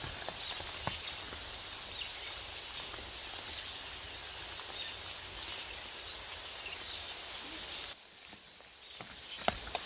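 Outdoor forest background: a steady hiss with faint, scattered bird calls and an occasional light click. About eight seconds in, the sound drops to a quieter stretch.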